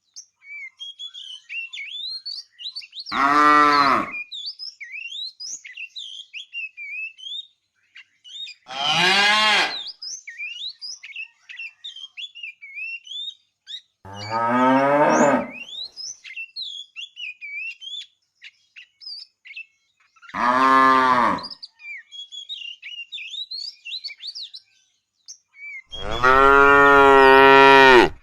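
Cow mooing five times, each call a second or so long and the last one longer, about two seconds. Small birds chirp steadily in the gaps between the moos.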